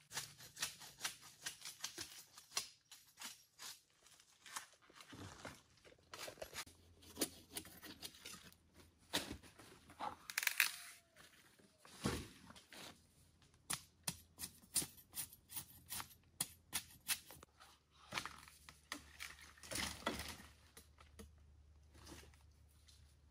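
Dry leaf litter and undergrowth rustling and crackling under feet and hands, with many short snaps and knocks of sticks and bamboo poles being handled.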